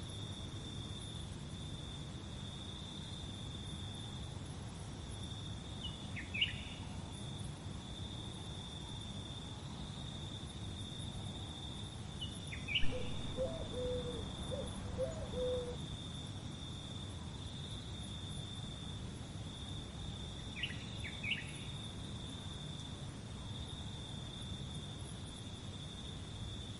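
Insects trilling in one steady high-pitched drone over a low background rumble, with a few short falling bird chirps and, around the middle, a brief run of lower call notes.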